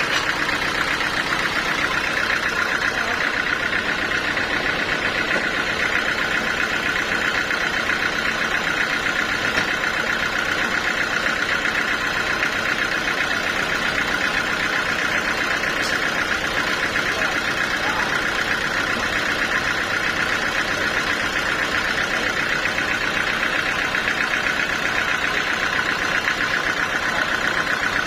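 Sawmill machinery running steadily: an even, unbroken mechanical drone that holds the same level throughout.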